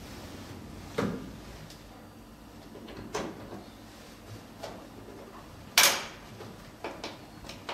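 Hard plastic knocks and clicks as the large cryolipolysis handpiece's cable connector is handled and pushed into the machine's front socket, with a louder, sharper clunk about six seconds in and a few lighter clicks after it.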